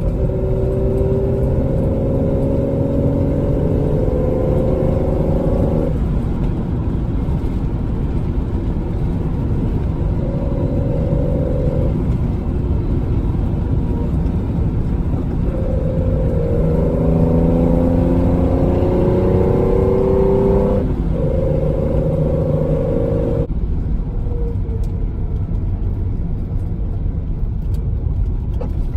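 Datsun 260Z's straight-six breathing through triple Mikuni carburettors, driven on the road. The engine note climbs twice under acceleration, in the first six seconds and again from about fifteen to twenty-one seconds, with steadier running in between.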